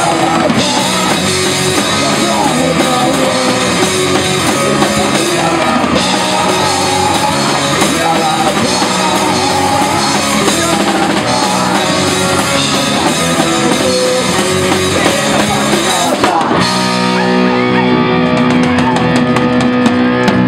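Live rock band playing loud, with drum kit and electric guitar. About sixteen seconds in, the drumming stops and the song closes on a long held, ringing chord.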